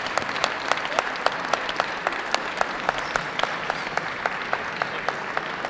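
Audience applauding steadily, with single sharp claps standing out several times a second over the general clapping.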